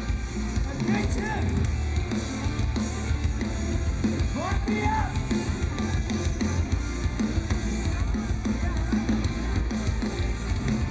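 Live rock band playing loud through a concert sound system, with the drum kit prominent over a heavy low end. A couple of sliding high notes rise and fall about a second in and again about four and a half seconds in.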